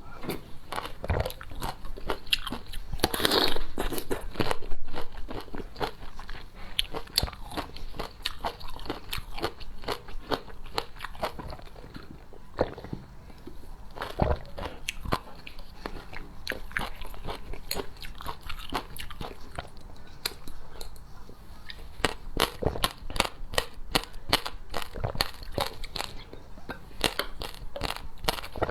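Close-miked eating: repeated bites and chewing with sharp wet clicks and crunches, loudest a few seconds in and crowding together again near the end.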